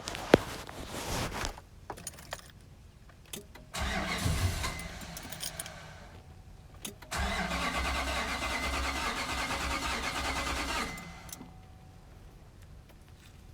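2005 Nissan Titan's 5.6-litre V8 cranked on the starter twice, once for about two seconds and then for nearly four, turning over steadily but never catching: a crank-no-start, which the owner suspects is fuel not reaching the engine or failed ignition coils. A sharp click comes near the start.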